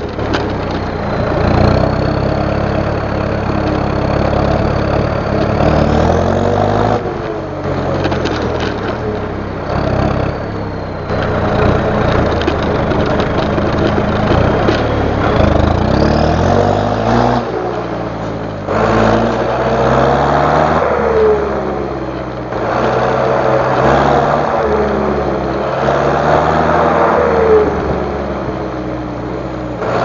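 John Deere 5820 tractor's diesel engine running under way, its pitch dropping and climbing again several times, with a thin high whine above it.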